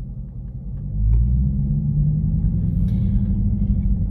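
V8 exhaust of a 2017 Dodge Charger Daytona running through Dynomax Race Bullet resonators in place of the mid mufflers, as the car pulls away. About a second in the engine note gets louder and rises in pitch, then settles to a steady cruise.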